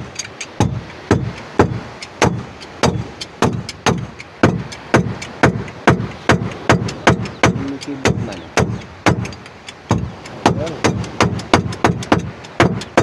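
Claw hammer tapping steadily on a steel mounting plate on a wooden boat's engine bed, about three sharp, ringing blows a second, tapping the plate into alignment for the engine mount.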